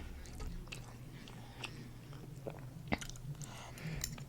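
Quiet chewing of food close to the microphone, with a few soft wet mouth clicks scattered through it over a low steady hum.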